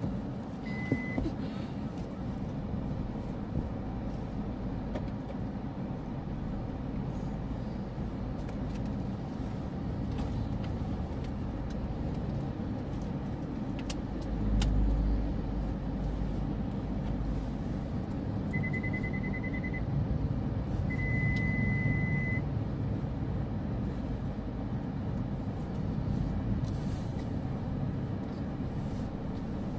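Car engine running at low speed, heard from inside the cabin as a steady low rumble. Short high electronic beeps sound about a second in, then a quick run of beeps and a longer steady beep about twenty seconds in.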